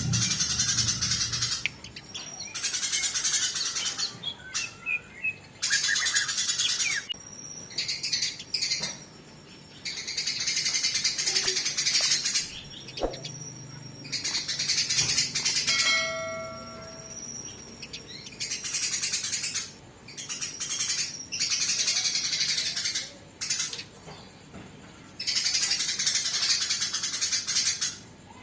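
Eurasian tree sparrows fighting: bursts of harsh, rapid chattering calls, each a second or two long, repeated with short pauses between them. About halfway through comes one brief, flat-pitched note.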